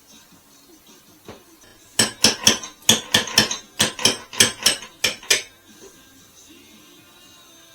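A quick run of about a dozen sharp metallic clanks, roughly four a second, starting about two seconds in and stopping after about three and a half seconds: metal being struck against metal.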